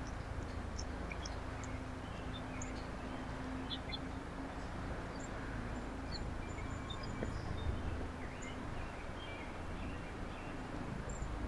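Small birds chirping in brief, scattered high calls over a steady low rumble and hum.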